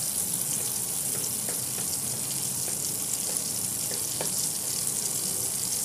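Butter sizzling as it melts in a hot non-stick kadhai, a steady high hiss, with a few light taps of a wooden spatula moving it around the pan.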